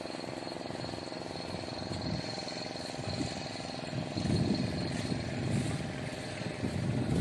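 An engine idling steadily, with a thin high whine held over it. Stronger low rumbles rise over the hum about four seconds in and again near the end.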